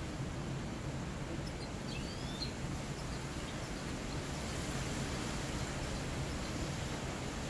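Steady outdoor background noise with a low hum, and a few faint, brief chirps about two seconds in from a caged mixto, a canary-cross hybrid finch.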